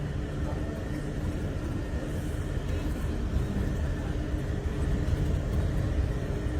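Steady low rumble of a moving vehicle, with a faint continuous hum above it.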